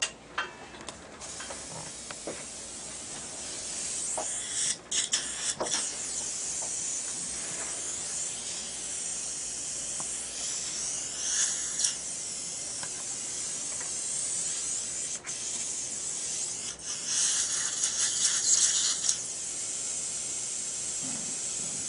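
Surgical implant handpiece drilling with a Lindemann bur into the jawbone, redoing the pilot hole at a corrected angle, under a steady hiss of irrigation spray and suction. The hiss grows louder for about two seconds near the end.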